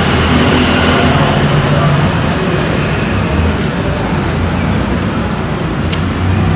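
Steady ambient road traffic noise, with motor vehicle engines running and indistinct background voices.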